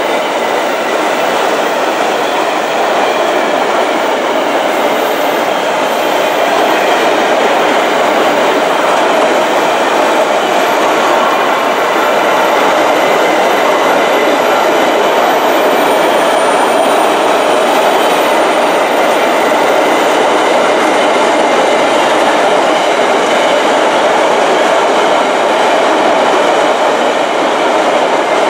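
Empty iron ore gondola wagons of a freight train rolling past close by: a loud, steady noise of steel wheels running on the rails.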